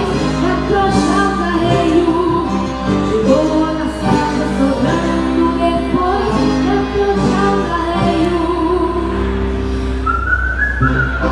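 A child singing a gaúcho native song into a microphone, backed by piano accordion and acoustic guitar. About a second before the end, a whistled melody comes in over the accompaniment.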